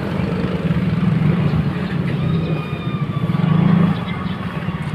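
Small motorcycle engine running as the bike rides slowly along, its note rising and falling with the throttle, a little louder just before the end.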